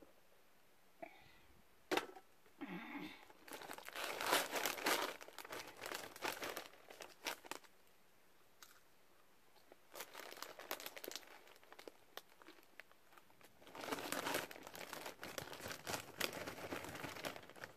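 Plastic snack bag of puffed rice crackers crinkling in three bouts as it is handled and its top rolled shut near the end, after a single sharp click about two seconds in.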